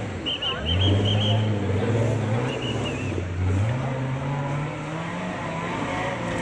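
Engine of an off-road competition 4x4 working hard and revving as it climbs a steep dirt slope, its pitch rising steadily about midway. A few short high chirps sound near the start.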